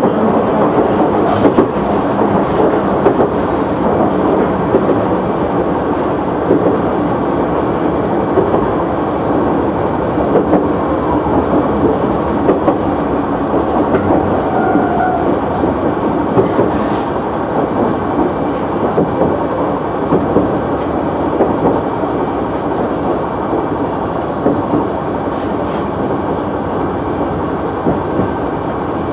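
KiHa 100 diesel railcar running along the line, heard from the front of the train: a steady rumble of engine and wheels on rail, with a click from the wheels over a rail joint every second or two.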